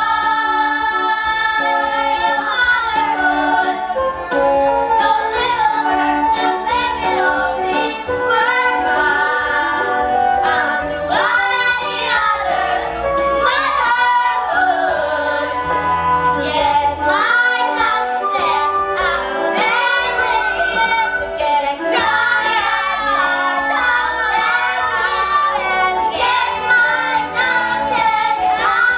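Female singing of a stage-musical number over instrumental accompaniment, the sung melody bending and changing note every second or so.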